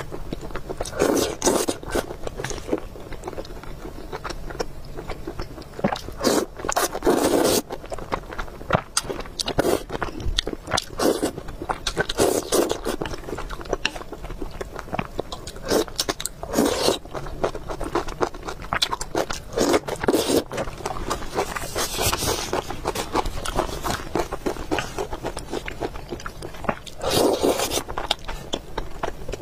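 Close-miked eating sounds: chewing and biting food, with many small clicks and scrapes throughout and a louder mouthful every few seconds.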